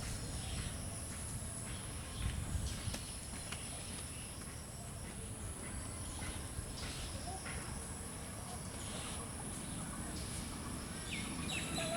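Outdoor ambience: a steady low rumble with scattered faint knocks, and a bird chirping a few times near the end.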